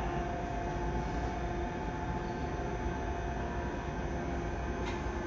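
A stationary Yokohama Municipal Subway 3000A-series train idling at an underground platform: a steady hum with a low rumble and a faint, even whine, its traction motors silent.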